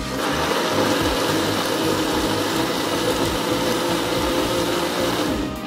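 Countertop blender running, pureeing tomato sauce: a steady motor whine over a churning rush, which cuts off near the end.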